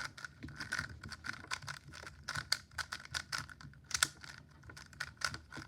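Rapid, irregular plastic clicking of a Little Magic M 3x3 speed cube being turned by hand, several turns a second.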